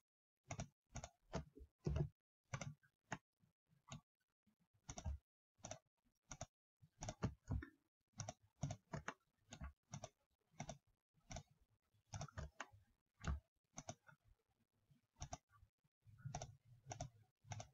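Faint computer mouse clicks at an irregular pace, often one or two close together, about every half second to second.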